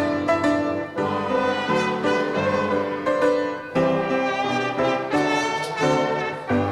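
Brass instruments playing a hymn tune in full chords, the notes held and changing about every half second to a second.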